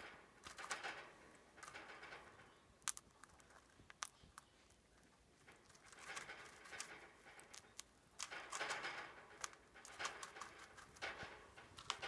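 Lutino cockatiel eating from its seed dish: faint rustling of seed, and irregular sharp clicks as the beak picks and cracks seeds against the dish.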